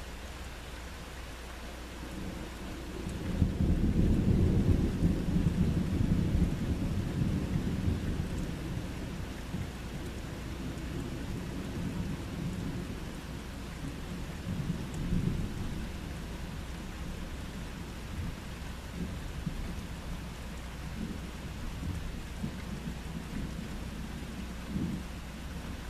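A long roll of thunder that rises a few seconds in, is loudest for a few seconds, then slowly fades, over a steady hiss of rain. Fainter rumbles come back near the end.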